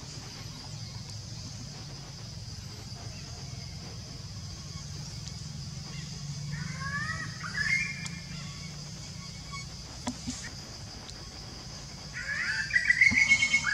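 Two short runs of wavering, rising animal cries: one about six to eight seconds in, and a louder one near the end. Underneath is a steady high hiss of the surroundings.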